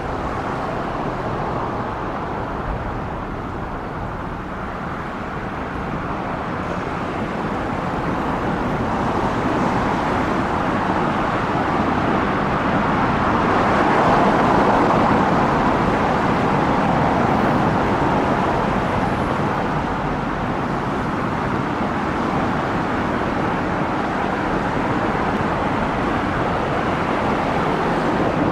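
Road traffic noise: a steady wash of passing cars that swells to its loudest about halfway through and then eases off.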